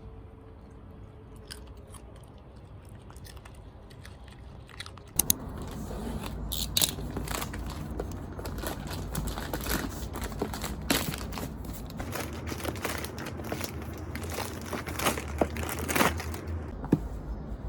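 A bichon frise crunching and chewing food after being told to eat: a run of short, irregular crunches that grows busier about five seconds in.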